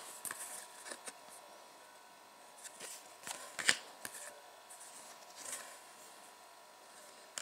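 Stiff glossy trading cards handled by hand and swapped one for another: faint sliding and flicking, with a sharper card snap a little past halfway through.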